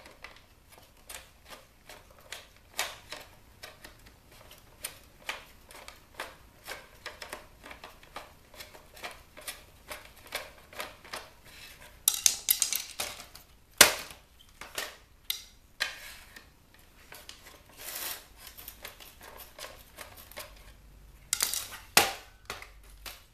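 The hard plastic casing of a CD/tape boombox being pried and handled with a screwdriver: a long run of small plastic clicks and creaks, a louder scraping burst about twelve seconds in, and a sharp crack about two seconds later. Near the end come a few knocks as the unit is picked up and turned.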